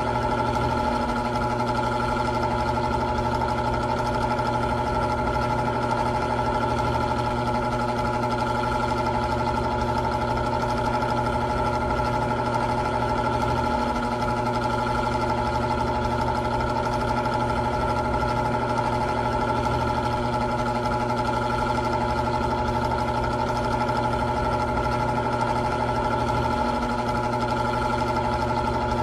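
Old electric fan running steadily: a motor hum with several constant whining tones, the low hum shifting slightly about every thirteen seconds.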